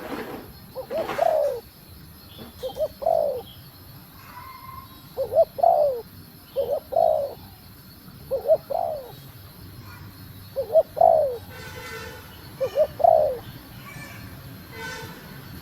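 Female spotted dove cooing: about seven short two-part coos, a quick lead-in note then a stronger note that rises and falls, repeated every second and a half or so. It is the hen's call used to stir male doves into cooing.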